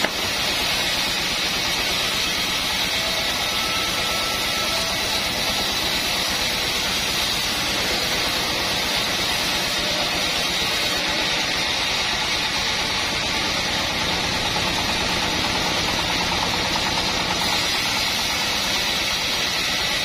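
Homemade band sawmill running steadily, its band-saw blade cutting lengthwise through a log.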